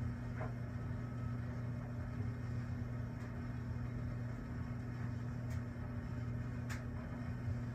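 A steady low hum, with a few faint sharp clicks in the second half.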